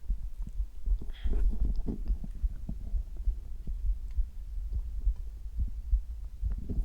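A person's heartbeat picked up for ASMR, a steady run of low thuds, with a brief louder rushing noise about a second in.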